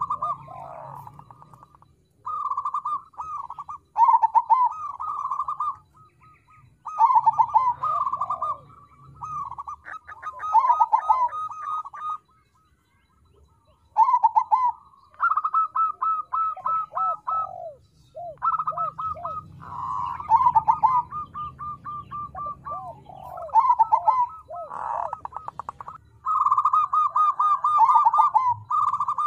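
Crossbred zebra dove (perkutut crossing) singing its cooing song: phrases of rapid, rolling coo notes repeated in bouts, with a pause of about two seconds near the middle.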